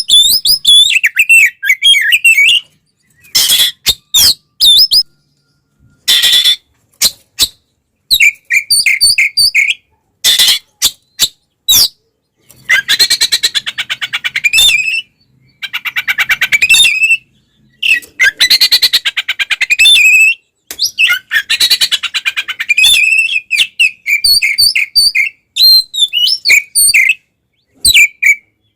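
Oriental magpie-robin (kacer) singing an agitated fighting song. Quick, varied high whistles and clicks alternate with several longer harsh, rapid chattering phrases, with short pauses between bursts.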